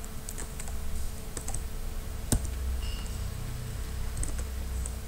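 Scattered light clicks and taps on a computer keyboard, with one sharper click about two and a half seconds in, over a low steady hum.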